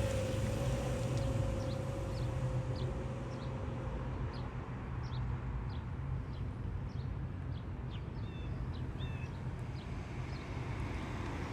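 Small birds chirping repeatedly, in short quick notes, over a steady low rumble.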